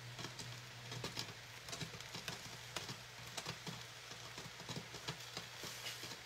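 Pancit noodles crackling softly in a hot stainless pan, many small irregular pops, over a steady low hum.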